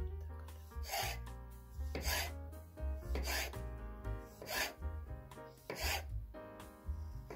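Chef's knife slicing a tomato into wedges on a wooden cutting board: five rasping strokes, about one every second, as the blade cuts through the skin and flesh onto the board.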